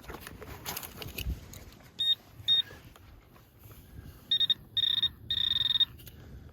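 Handheld metal-detecting pinpointer beeping as it is probed into the sand over a target: two short beeps about two seconds in, then longer beeps that run into a near-continuous tone as it closes in on the buried coin.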